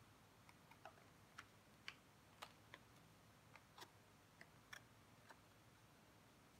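Faint, irregular ticks and clicks of thin cardboard being handled and folded by hand, about a dozen over a few seconds.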